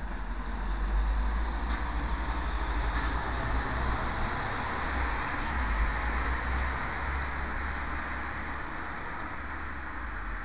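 Steady rumble and hiss through a miniature camera's built-in microphone. It swells slightly about a second in and eases off toward the end, with no distinct events.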